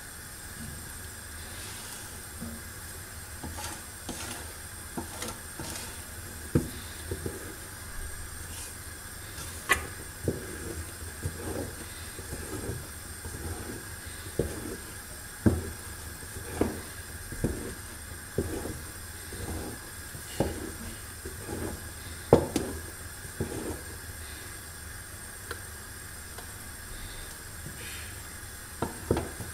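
Long wooden spoon stirring a thick sesame-and-hazelnut paste in a large aluminium pot, knocking and scraping against the pot's wall at irregular intervals over a steady hiss.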